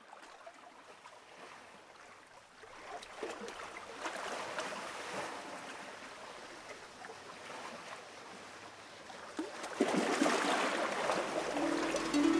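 Flowing water with a fine crackle, like a stream, growing louder about ten seconds in; musical notes begin to sound near the end.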